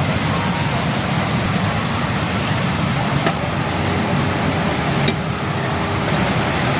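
Steady loud din of a pachinko parlor: many machines running at once, with two sharp clicks, about three and five seconds in.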